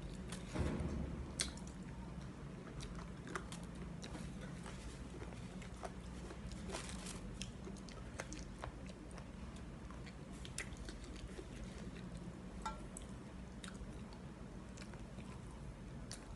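A person chewing and biting on chicken feet from a bowl of tom yum instant noodles, with scattered small clicks and crunches over a steady low hum.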